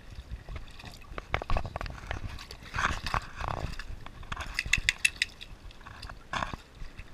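Boxer puppy wading and pawing through shallow water in a plastic paddling pool: splashing and sloshing in short bursts, with many sharp clicks and knocks close to the microphone.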